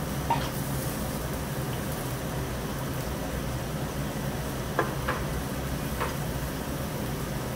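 Meat sizzling on a tabletop yakiniku grill over a steady low hum, with a few light clicks of chopsticks against a dish.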